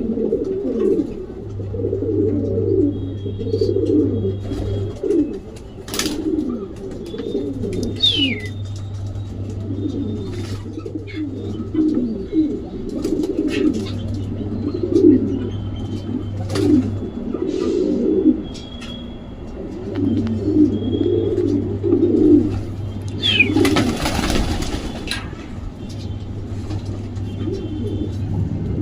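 Racing homer pigeons cooing, many low coos overlapping without a break, with a few faint higher chirps. A short rustling burst comes about 24 seconds in.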